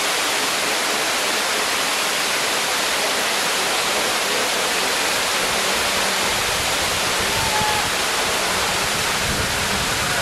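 Water pouring over a dam spillway: a steady, even rushing. A faint steady low hum joins it in the second half.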